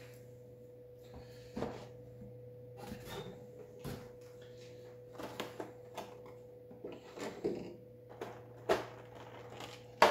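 Scattered light knocks, clicks and brief rustles of board-game box contents (card stacks and miniatures) being handled and set down, over a steady low electrical hum.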